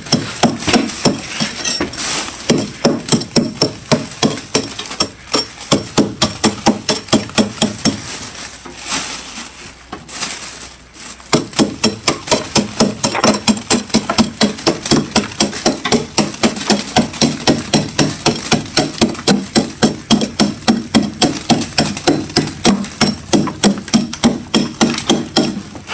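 Metal spoon scraping and chipping thick frost off a freezer's shelves in quick, even strokes, about three a second, with a lull of a few seconds partway through.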